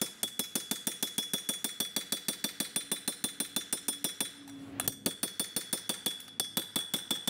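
Hammer tapping a race driver to seat a wheel-bearing race into a cast brake rotor: quick light metallic taps, about six a second, with a short pause a little after four seconds in before they resume. The ring of the taps changes as the race beds down all the way in its bore.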